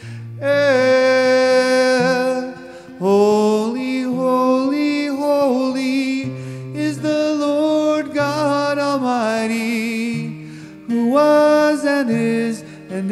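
A man singing a slow worship song, holding long notes between short breaths, over a strummed acoustic guitar.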